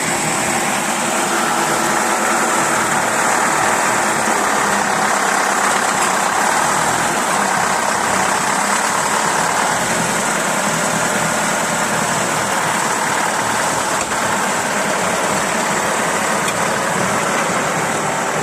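DT-75 crawler tractor's diesel engine running steadily while the machine is driven and steered on its tracks.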